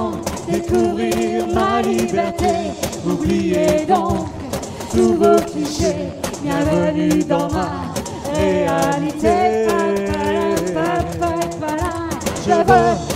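Singing over a recorded backing track, with a light rattling percussion beat running underneath.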